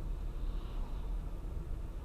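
Car driving through heavy rain: a steady low rumble of road, tyre and rain noise, with a lighter hiss above it.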